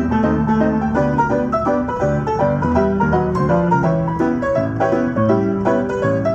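Player piano playing a perforated QRS music roll: a lively popular-song arrangement with busy chords in the right hand over a steady, rhythmic bass line.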